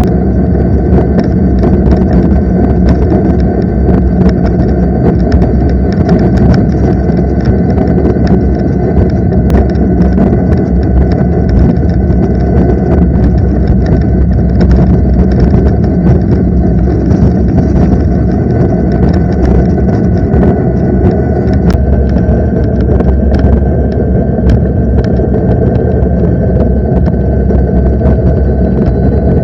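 Electric bike's rear motor running at speed with a steady whine, over a loud low rush of wind and road noise.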